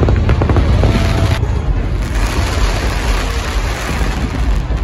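Fireworks display going off overhead: sharp cracks and bangs for the first second or so, then a dense continuous rumble of bursts.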